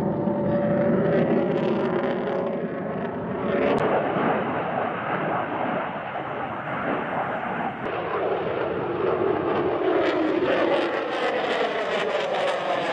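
F-22 Raptor's twin Pratt & Whitney F119 afterburning turbofans running loud and steady through a display pass. There is a sharp crackle about four seconds in, and near the end a sweeping, phasing whoosh as the jet passes.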